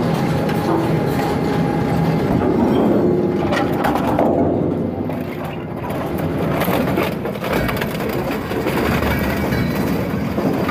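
Industrial shredder running under load, crushing and tearing material, with scattered cracks and snaps over a steady rumble. The crunching thins out for a moment about halfway through, then picks up again.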